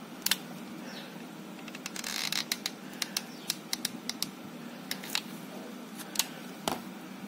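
Scattered small clicks and taps of hands working plastic pearls and rhinestone mesh with a hot glue gun, with a brief rustle about two seconds in, over a steady low hum.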